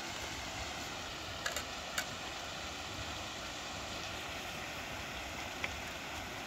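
Steady rushing of a mountain stream and small waterfall, with a few light clicks in the first two seconds and again near the end.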